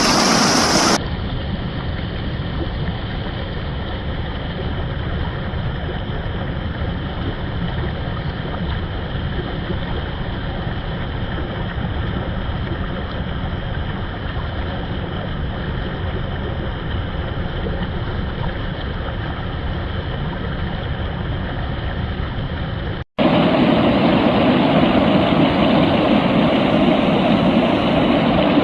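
Flowing water played in reverse: a steady rushing rumble. It changes abruptly to a duller, narrower sound about a second in, then, after a momentary dropout near the end, switches back to a louder, fuller rush.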